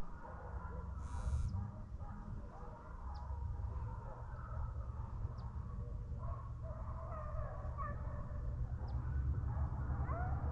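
Hunting hounds baying in the distance, faint wavering cries that come through more plainly in the second half, over a steady low rumble.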